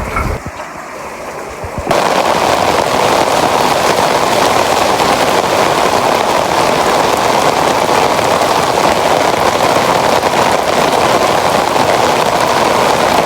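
Heavy rain pouring down close by, a dense, steady crackling hiss that starts suddenly about two seconds in.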